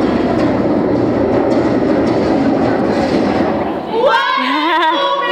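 A loud, steady rumbling noise with a fast clatter running through it stops about four seconds in, and voices take over, singing in a wavering, gliding line.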